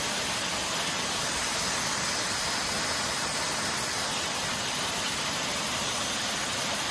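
Waterfall pouring in a steady, even rush of water, heavy in the high hiss, with no let-up.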